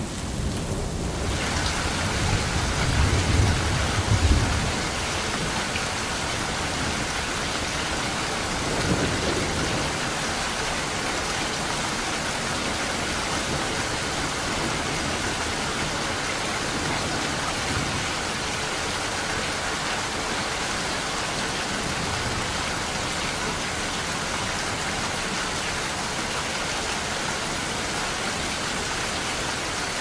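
Heavy rain falling steadily and splashing on a wet surface. A low rumble of thunder builds in the first few seconds, loudest about four seconds in, and a shorter rumble comes about nine seconds in.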